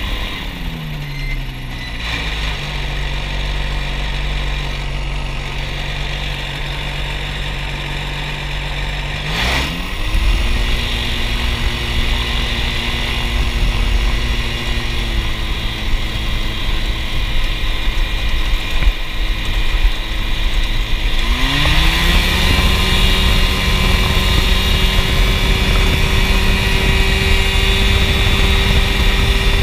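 Ultralight aircraft engine and propeller at close range. The engine drops to a low idle in the first two seconds and picks up to a higher taxiing speed about nine and a half seconds in. About twenty-one seconds in it opens up to a steady, louder full power for the takeoff run.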